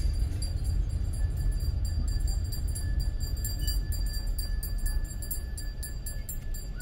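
A car driving along the road: steady low road-and-engine rumble, with faint high ticks and rattles.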